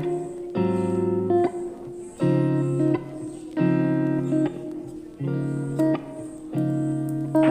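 Background music: a plucked guitar plays chords in a steady repeating pattern, with a new chord about every second and a half.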